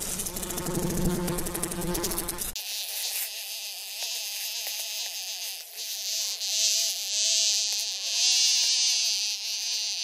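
House fly buzzing. About two and a half seconds in the sound changes abruptly from a fuller, lower buzz to a thinner, high-pitched buzz that swells and fades several times.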